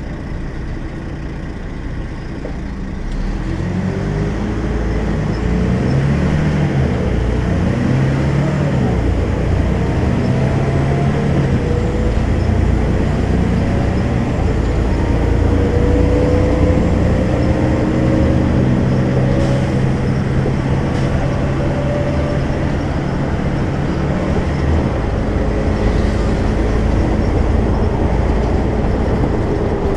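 Volvo B12M bus engine (340 hp, ZF gearbox) goes from a steady idle to pulling away about three seconds in. As it accelerates, its note rises in pitch in several long climbs.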